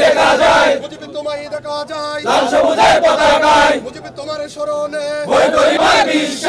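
A group of men chanting slogans in call and response: a single voice calls out, and the crowd shouts the answer back in unison, about three times.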